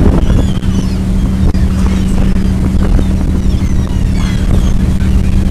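Sportfishing boat's engine running steadily under way, a low, even drone.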